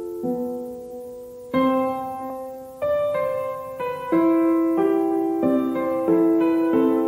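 Background piano music: gentle notes and chords struck one after another at a slow pace, each left to ring and fade.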